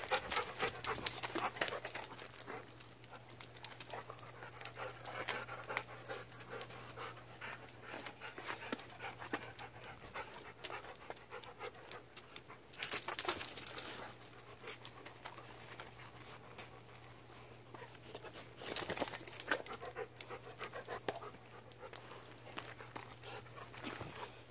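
Dog panting steadily and rapidly, louder for a moment about halfway through and again about three-quarters of the way through.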